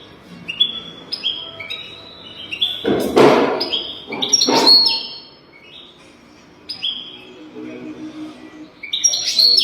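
European goldfinch singing: a rapid run of short, falling chirping notes, broken by two loud noisy rasping bursts about three and four and a half seconds in.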